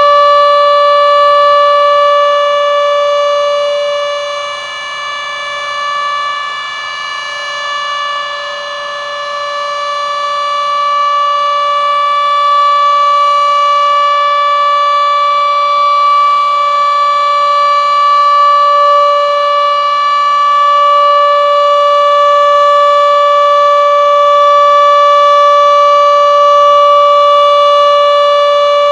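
A Denver outdoor warning siren sounds one steady, loud tone. It fades about four seconds in and swells back to full strength by about twelve seconds.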